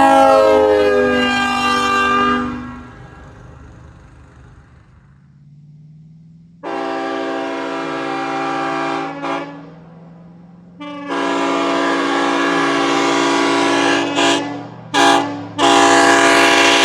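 Locomotive air horn sounding a chord: a blast that falls in pitch as it dies away at the start, then a blast of about two and a half seconds, a long blast of about four seconds, and two short toots before another blast near the end. A low steady hum runs underneath between the blasts.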